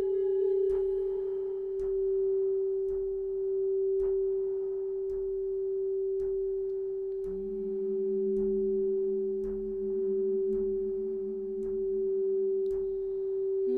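Steady electronic drone of a pure, unwavering tone, with a second, lower tone joining about halfway through and dropping out near the end. Faint soft ticks come about once a second underneath.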